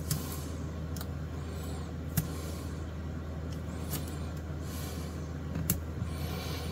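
Handling noise of masking tape being wrapped and pressed around a guitar neck to clamp new binding: soft rustles of the tape and several sharp ticks, over a steady low hum.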